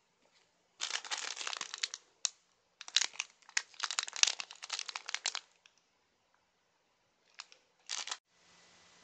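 Clear plastic packaging bag being handled and crinkled: a burst of rustling about a second in, a longer, louder stretch from about three to five seconds in, and two short crinkles near the end.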